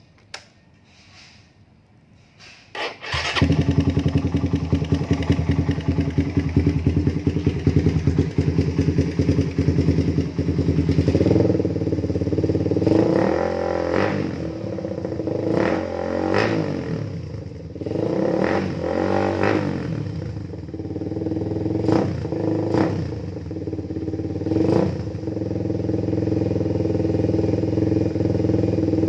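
Motorcycle fitted with an aftermarket 'namban' exhaust pipe starting up about three seconds in and idling with a steady beat. From about eleven seconds in the throttle is blipped several times, the pitch rising and falling, with a few sharp pops, before it settles back to idle.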